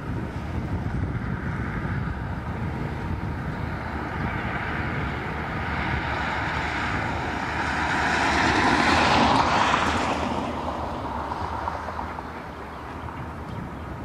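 A diesel-hauled passenger train running away into the distance: a steady rumble of the CFR class 65 'Jimmy' locomotive's engine and the train on the rails. It swells about two thirds of the way through, then fades.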